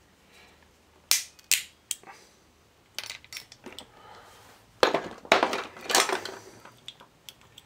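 Sharp cracks and clicks as pliers break apart the plastic trip mechanism of an RCD: a few single snaps in the first few seconds, then a louder, quicker run of cracks and clatter about five to six seconds in.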